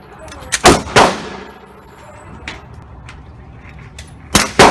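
Four suppressed 9mm pistol shots from a SIG Sauer P320 with a Surefire Ryder suppressor, in two quick pairs: one pair about a second in, the other near the end. Each shot is a sharp crack with a ringing tail. The last shot leaves the pistol jammed with a stovepipe, a failure to feed.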